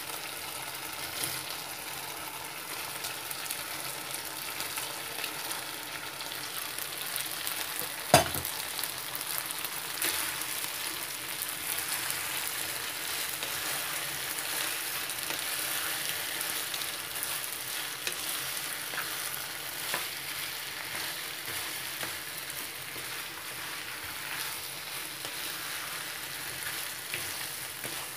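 Chicken and vegetable stir fry sizzling steadily in a frying pan as freshly added red and green bell pepper pieces are stirred with a wooden spatula. A single sharp knock about eight seconds in.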